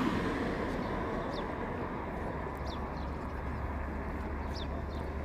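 Steady background noise with a low hum, and three faint short high chirps spread through it.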